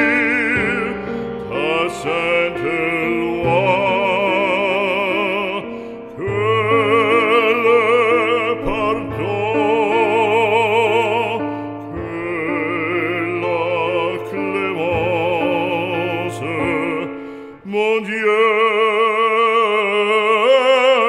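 Background music: operatic singing, a solo voice holding long notes with heavy vibrato over a sustained accompaniment, with short breaks between phrases about six seconds in and again near the end.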